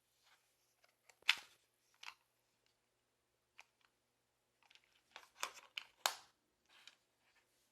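Charging case being handled: scattered sharp clicks and short rustles, the loudest a little over a second in and a cluster around five to six seconds in, over a very faint steady low hum.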